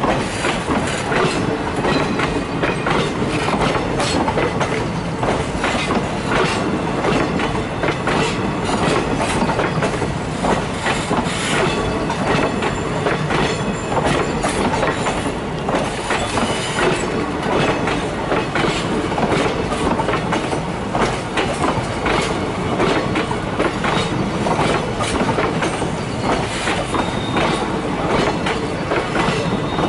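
Passenger train coaches rolling past on the adjacent track, their wheels clattering over the rail joints in a continuous run of clicks and knocks over a steady rumble.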